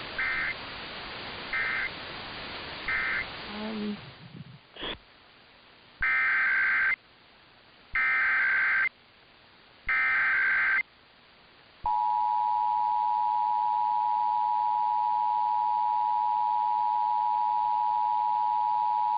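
Emergency Alert System test audio over radio hiss. First come three short buzzing data bursts, the end-of-message code. After a cut, three longer, roughly one-second data bursts of the next test's header sound about two seconds apart, and about twelve seconds in the steady two-tone EAS attention signal begins.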